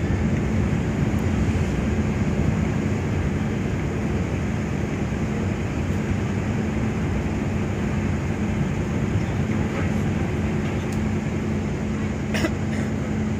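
Ferry's diesel engines running with a steady low drone as the ship manoeuvres to berth, with one short sharp click near the end.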